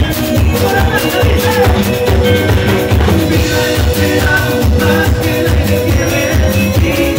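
Live ranchera band playing: drum kit and percussion keep a steady beat under the melody, with a singer's voice on top.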